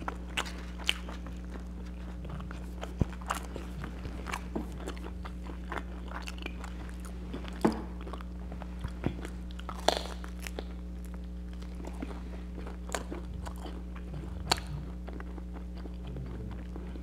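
Close-up eating sounds: a person biting and chewing crusty cheesy garlic bread, with crisp crunches and mouth clicks coming irregularly, over a steady low hum.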